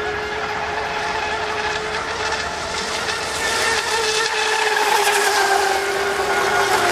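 Battery-powered electric RC speedboat running flat out across the water, its motor giving a steady high whine over the hiss of the hull. The whine grows louder from about halfway through as the boat comes past close by.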